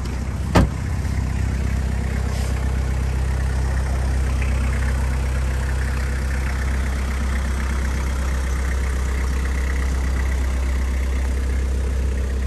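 Toyota Carina's 2.0 L 2C-T four-cylinder turbo-diesel idling steadily. A single sharp thump about half a second in, the driver's door being shut.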